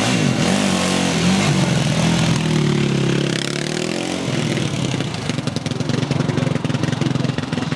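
A 450cc single-cylinder quad bike engine revving, its pitch rising and falling over the first four seconds or so. It then settles to a lower, rougher, uneven running.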